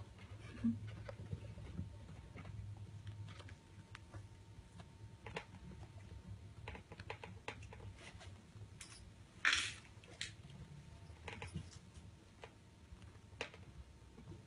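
Irregular soft clicks and scratches right at the microphone as a kitten paws and bites at a wand toy against the phone, with one louder scrape about nine and a half seconds in.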